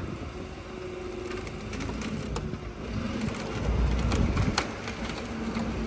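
Forklift engine running, getting louder about three and a half seconds in, with a few sharp metallic knocks.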